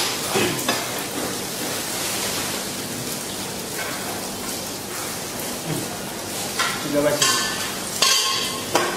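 Food sizzling in a hot cooking pan as it is stirred, a steady frying hiss with a few utensil scrapes and knocks against the pan, most of them near the end.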